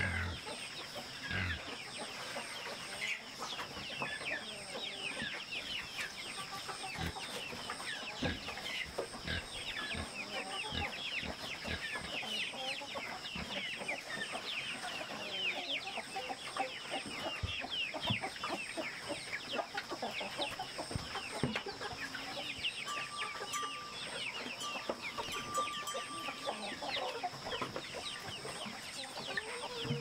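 Chickens clucking and chirping in many quick, high, falling calls, over a steady high insect drone, with a few low knocks now and then.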